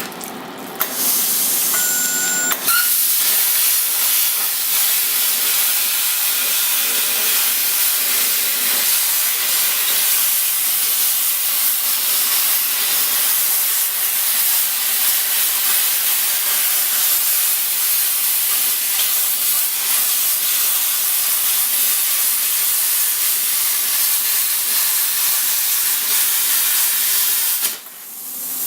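Plasma torch cutting a welded-on steel plate off an axle: a loud, steady hiss of air and arc that starts about a second in and cuts off shortly before the end.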